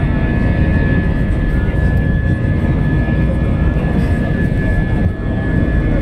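Airliner's jet engines at takeoff power during the takeoff roll, heard inside the cabin: a loud, steady roar with deep rumble and a steady high whine.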